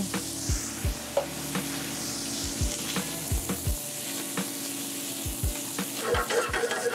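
Chow mein noodles sizzling in a hot stainless steel sauté pan as coconut cream and garlic sauce are poured in, then stirred and tossed with a utensil, with a few low knocks against the pan.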